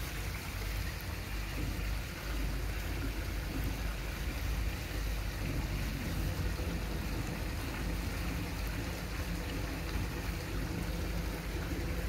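Steady rush of moving pond water over a continuous low rumble, with no distinct clicks or breaks.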